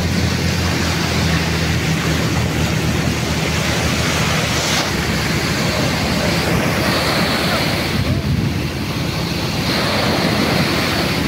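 Sea surf washing and breaking in the shallows, a steady loud wash of noise, with wind buffeting the microphone.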